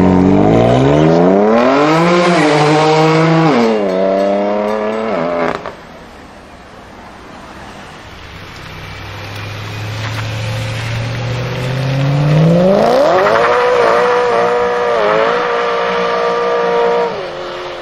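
Two BMW M cars accelerating hard one after the other. First a BMW M4 F82 pulls away, its engine note climbing with gear changes before it cuts off suddenly. Then a BMW M3 E92's V8 hums low and steady before it revs hard, rising through quick upshifts and easing off near the end.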